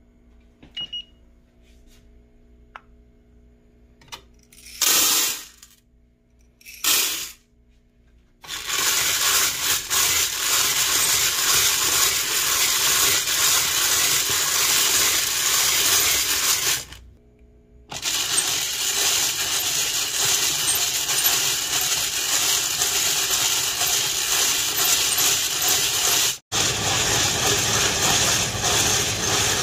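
Green coffee beans poured into a hot metal Whirley-Pop stovetop popcorn popper in two short bursts. Then a steady, dense rattle of the beans being stirred around inside the pot, with a short break about halfway through.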